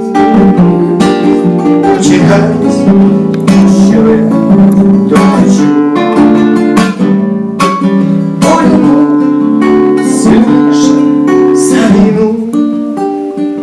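Acoustic guitar strumming chords, played loud.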